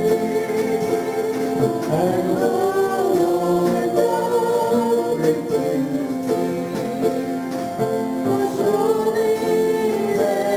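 Congregation singing a gospel hymn with instrumental accompaniment, guitar among the instruments.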